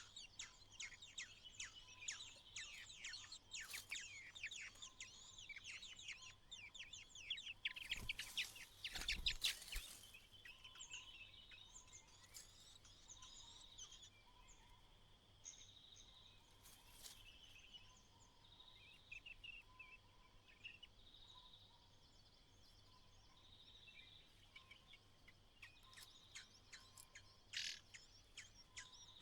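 White-browed laughingthrushes calling: quick runs of short chirps for the first ten seconds or so, with a louder rustling burst about eight seconds in, then fainter scattered chirps over a steady high hum.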